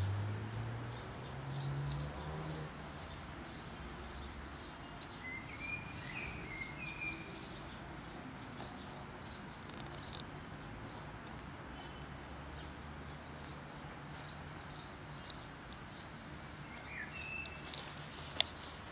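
Small birds chirping over and over, with a few short sliding calls among them, over a steady low background hum. A single sharp click near the end.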